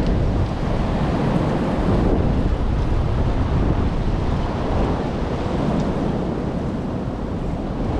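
Strong wind blowing through bare trees and buffeting the microphone: a steady rushing noise with a heavy low rumble.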